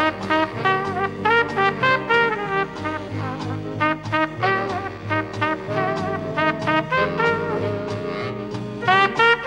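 Background music: upbeat swing-style jazz led by brass, playing short, clipped phrases over a moving bass line.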